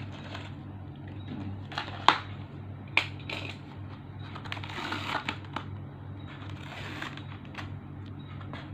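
Packaging being handled and opened: plastic and tape crinkling and rustling, with sharp clicks about two and three seconds in, over a steady low hum.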